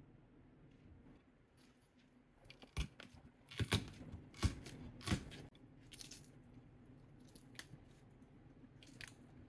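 A cucumber crushed under the palm on a wooden cutting board, cracking with several sharp snaps about three to five seconds in. It is then torn into pieces by hand with a few fainter crisp snaps.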